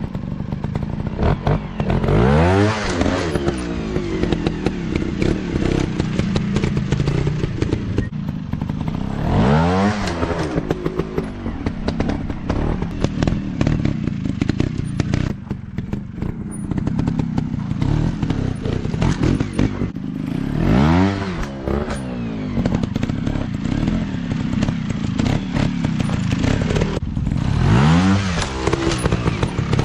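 Small trail dirt bike engines running, the engine note rising and falling in pitch four times.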